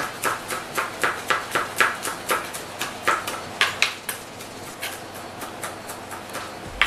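Kitchen knife finely chopping peeled garlic cloves on a plastic cutting board: quick knocks about four or five a second, lighter and sparser after about four seconds, with one sharper knock near the end.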